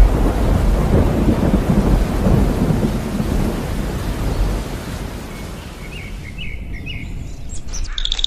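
Thunderstorm: a low rumble of thunder over the hiss of rain, dying away over the second half. A few bird chirps come in near the end.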